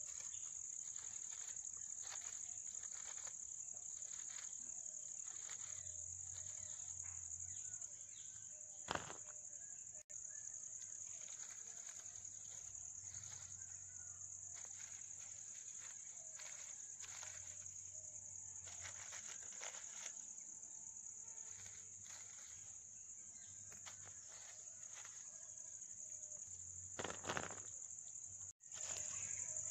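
Steady, high-pitched drone of insects, with a few short rustles and knocks; the loudest knocks come about nine seconds in and near the end.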